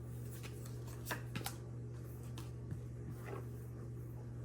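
Disney Lorcana trading cards being handled and sorted: a few faint, short clicks and slides of card on card, over a steady low hum.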